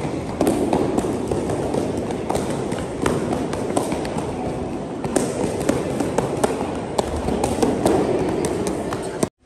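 Taekwondo training hall: many irregular sharp slaps and taps from kicking paddles and bare feet over a steady hubbub of moving children. It cuts off abruptly near the end.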